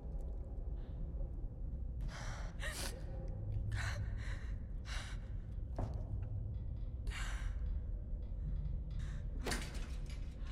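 A woman's heavy, ragged breathing with sharp gasps, the breaths coming irregularly about a second apart, distressed and in pain. A low steady hum lies underneath.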